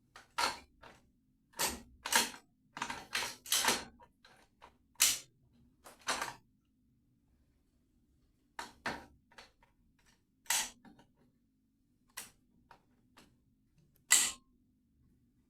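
Sharp, irregular clicks and knocks, about twenty of them in loose clusters, of hand tools and tap fittings being handled. The loudest come about five seconds in and near the end.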